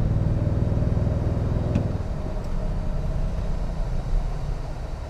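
Low engine and road rumble inside the cab of a 2022 Toyota Tundra with its 3.5-litre twin-turbo V6, driving at low speed. The rumble eases off about two seconds in.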